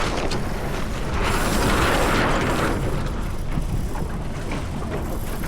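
Wind buffeting the microphone on a small sailboat under way, a steady low rumble. A louder rush of noise swells up about a second in and fades about two seconds later.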